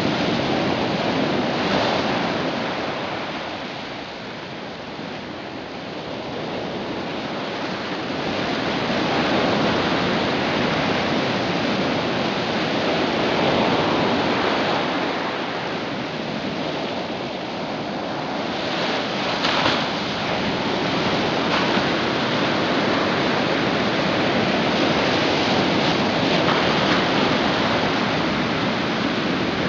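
Ocean surf and rushing water: a steady wash that swells and eases over several seconds, with a brief knock about two-thirds through.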